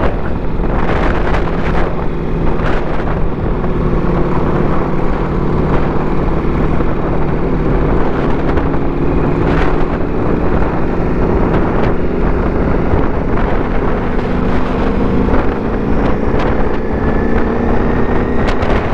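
Motorcycle engine running at road speed, with wind rushing over the microphone; the engine note rises slowly over the last few seconds.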